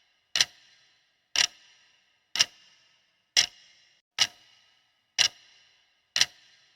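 Countdown timer sound of a ticking clock: sharp ticks about once a second, seven in all, each fading quickly.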